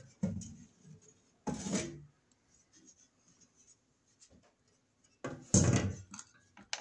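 Breaker panel's front cover being lifted off and set aside: a few short rubbing and scraping noises with knocks. The loudest is a rough scrape lasting under a second, about five and a half seconds in, and a sharp click follows near the end.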